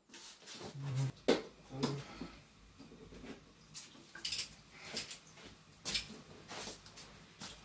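Handling noise from tools and metal parts: irregular clicks and light metallic clinks, with two sharper knocks about a second and two seconds in.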